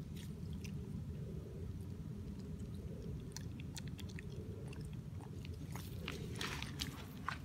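A long-tailed macaque chewing peanuts, with scattered crisp cracks and crunches from about three seconds in and a thicker cluster of them near the end, over a steady low rumble.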